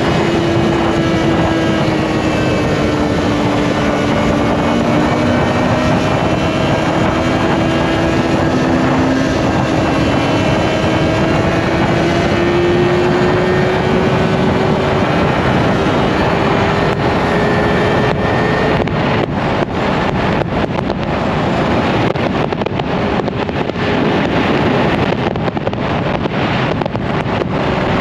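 Yamaha R1's inline-four engine running at a steady cruise under heavy wind noise on the microphone. The engine's pitch dips slightly, then rises slowly over the middle stretch, and the wind turns choppy near the end.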